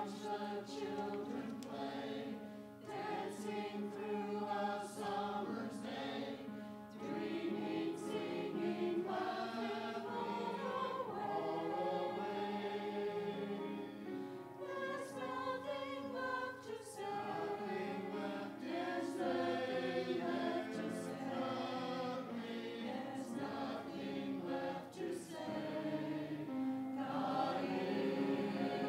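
Mixed church choir of men's and women's voices singing an anthem in parts, with piano accompaniment.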